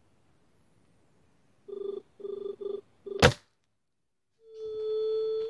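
A single sharp shot from a 5.5 mm Jade spring-piston air rifle, its mainspring weak, about three seconds in, just after four short hooting tones. Near the end a steady hooting tone lasts about a second.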